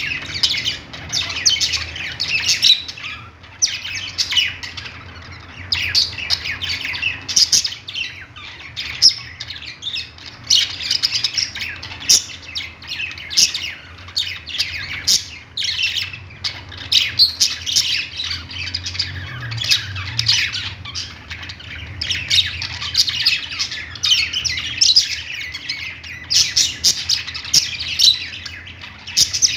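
A group of budgerigars chattering without a break: rapid chirps and warbles mixed with sharp squawks. A faint steady low hum runs underneath.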